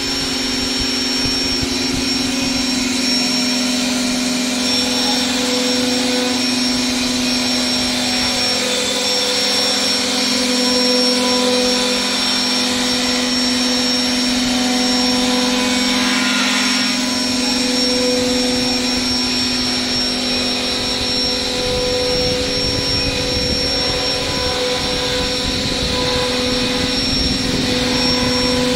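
CNC router spindle running at a steady high whine while a fine carving bit cuts into a solid wood board, over a steady machine hum.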